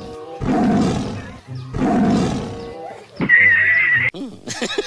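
Two lion roar sound effects dubbed over the scene, each about a second long. About three seconds in comes a high wavering squeal, and near the end a quick-beat music track begins.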